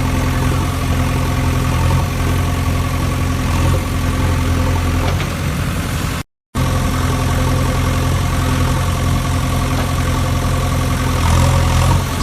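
Engine idling steadily with a low, even drone. It cuts out completely for a moment about six seconds in, then resumes unchanged.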